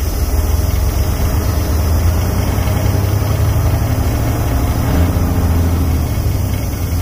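Semi truck's diesel engine running with a deep, steady sound, heard inside the cab as the truck pulls away slowly from a stop in a low gear.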